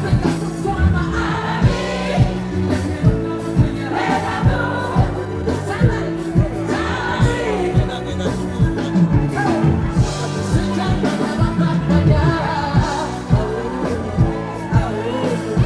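Live music with singing over a steady drum beat and bass.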